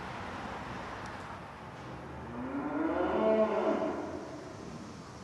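A cow moos once: a single long call, about two seconds long, starting about two seconds in, rising and then falling in pitch.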